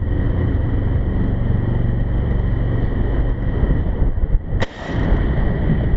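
Steady, heavy wind rumble on the microphone aboard a warship underway at sea, with one sharp click about four and a half seconds in.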